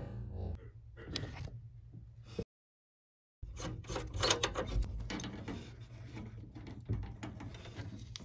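Irregular clicking and metallic rattling from hands working a brass thermostatic expansion valve and its copper line fittings. The sound cuts out completely for about a second near the middle, then resumes, busier.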